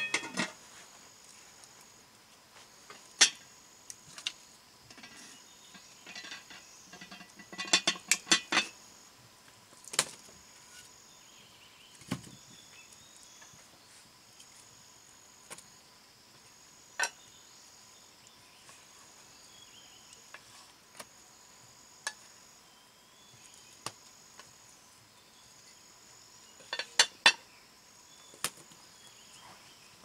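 Utensils clinking and knocking against cookware now and then, with clusters of quick clinks about eight seconds in and near the end. Insects call in short high phrases about every two seconds throughout.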